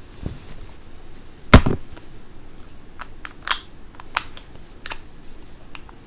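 Handling noise close to the microphone: one loud, sharp knock about a second and a half in, then several lighter clicks and taps at irregular intervals.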